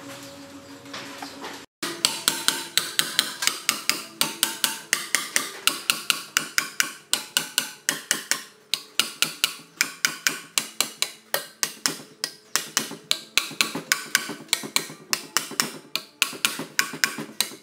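Rapid, even series of sharp metallic taps with a slight ring, about four a second, starting suddenly about two seconds in.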